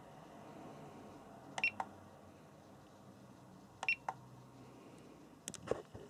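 SkyRC T100 battery charger's buttons being pressed, giving two short high beeps about two seconds apart, then a few quick clicks near the end.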